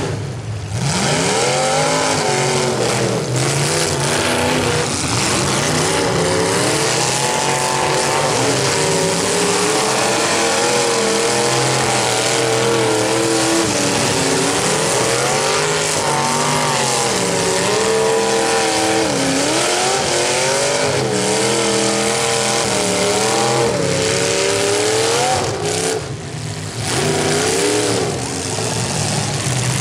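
Demolition derby cars' engines revving hard, several at once, their pitch climbing and falling continuously. The din drops briefly just after the start and again near the end.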